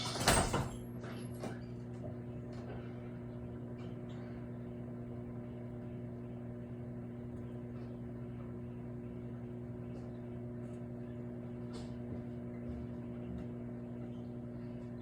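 Microwave oven running with a steady electrical hum, with a short loud knock just after the start and a few faint ticks later.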